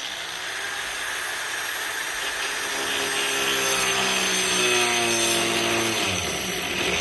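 Power saw with a diamond blade cutting fiber-cement backer board: a loud, steady grinding hiss over the motor's whine, which sags in pitch about six seconds in as the blade bogs under load and then picks up again.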